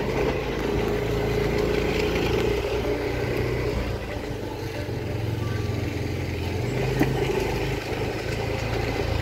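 Yamaha scooter engine running while ridden at low speed, its steady note changing pitch a couple of times as the throttle varies.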